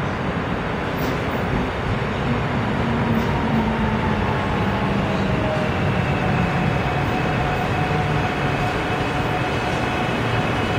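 Korail 321000-series electric multiple unit pulling into the platform: traction motor whine falling in pitch as it brakes, then levelling off, over steady wheel-on-rail rolling noise.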